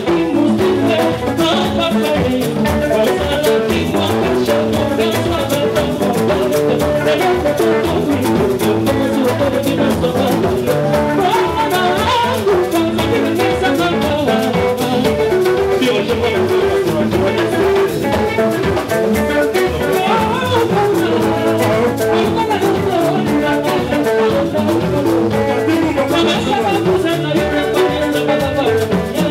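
Congolese dance-band music played live, with drums keeping a steady, driving beat under electric guitar and a voice on the microphone.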